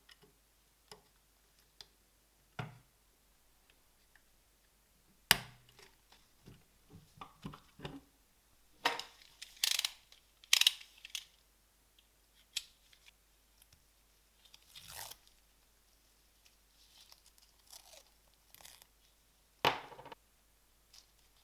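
Small parts being handled on a workbench: irregular clicks, taps and short scraping, rustling noises. The sharpest click comes about five seconds in, a cluster of scrapes follows around ten seconds, and another scrape comes near the end.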